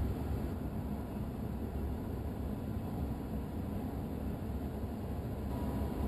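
Steady low rumble with an even hiss of outdoor background noise, unchanging and with no distinct event.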